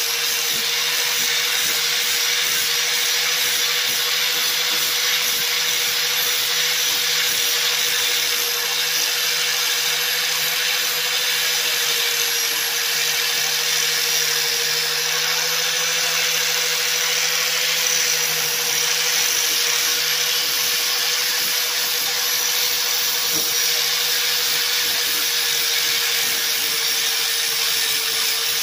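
Angle grinder with an 80-grit flap disc running steadily, sanding down fiberglass body filler: a constant motor whine over the hiss of the abrasive on the filler.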